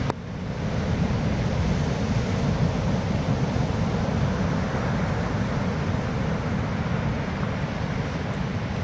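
Pacific Ocean surf breaking in a steady wash, with wind buffeting the microphone in a low rumble.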